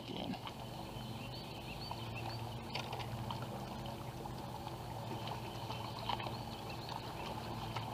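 Quiet on-the-water ambience: a low steady hum under faint water lapping, with a few small clicks.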